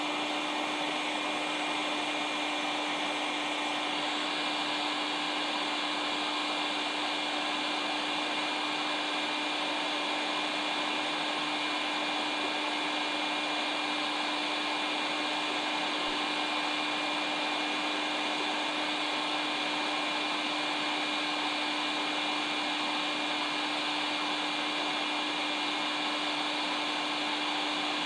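A hot-air blower running steadily: an even rush of fan noise over a constant motor hum, switched on abruptly.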